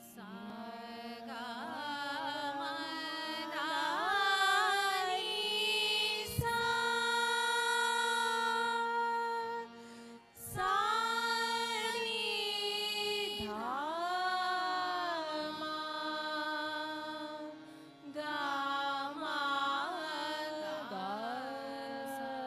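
Two women singing a Hindustani classical vocal duet: long held notes and sliding, ornamented phrases over a steady drone. The singing breaks off briefly about ten seconds in and again about eighteen seconds in.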